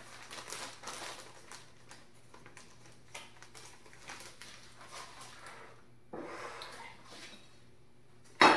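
Plastic zip-top bag crinkling and rustling as coated shrimp are shaken out of it onto a plate, with small soft clicks. Near the end a plate is set down on the countertop with one sharp clack.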